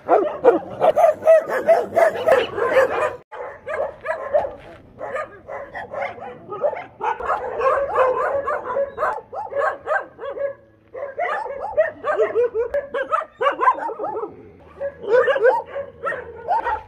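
Many shelter dogs barking and yelping at once in a near-continuous, overlapping chorus, with short lulls about three seconds in and again around eleven seconds.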